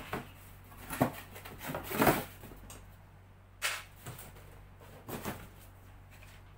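Cardboard boxes being handled: flaps folded and pressed shut and a box set down on another, a few short scraping rustles and knocks, the loudest about two seconds in. A low steady hum runs underneath.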